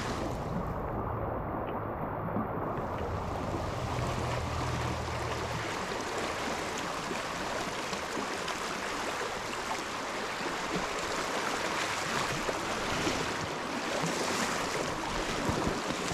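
Shallow creek riffle rushing steadily over rocks.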